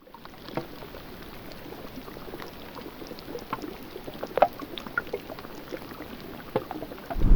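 River water trickling and lapping during the spring thaw: small irregular plinks, drips and gurgles over a faint steady hiss, with a louder plop about four and a half seconds in.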